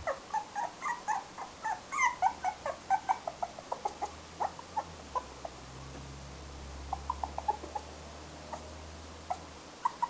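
Toy poodle puppy whimpering: many short, high-pitched squeaks and yips in quick succession, thinning out after about five seconds.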